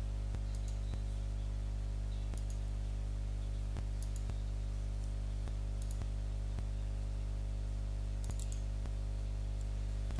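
Computer mouse button clicking at an irregular pace, about one click a second, each click setting a point of an outline being traced, over a steady low hum.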